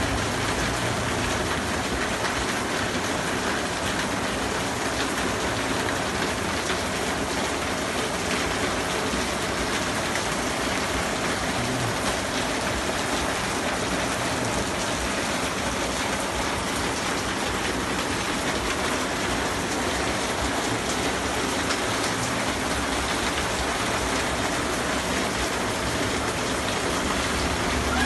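Steady, even hiss of noise with a faint crackle through it.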